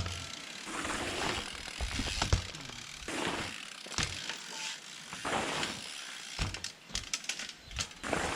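Specialized P3 dirt jump bike's rear hub freewheel ratcheting as the bike coasts, with scattered sharp clicks and knocks.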